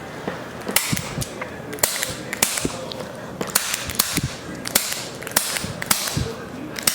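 Spring-loaded chiropractic activator adjusting instrument firing more than a dozen sharp clicks at an uneven pace, some in quick pairs, as it taps adjustments along the back.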